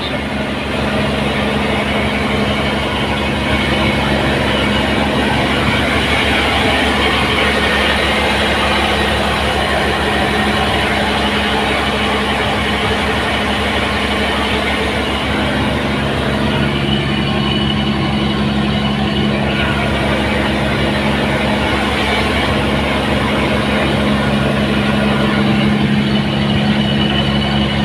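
Engine running steadily at constant speed, a loud, even drone with a low hum.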